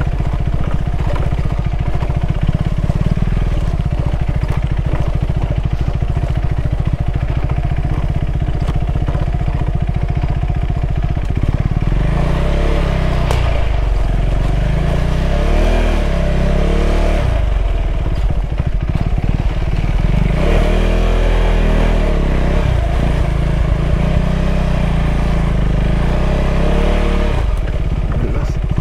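KTM 390 Adventure's single-cylinder engine running under way. It holds a steady note for the first dozen seconds, then rises and falls in pitch again and again as the throttle opens and closes through the gears.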